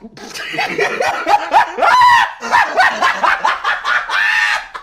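A man laughing loudly in a run of short, high-pitched bursts, each rising and falling in pitch.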